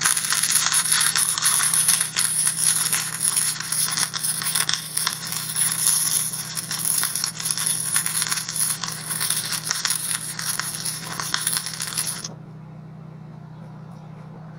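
Stick-welding arc crackling and sputtering as a rod burns, struck at the start and broken off abruptly about twelve seconds in, over a steady low hum.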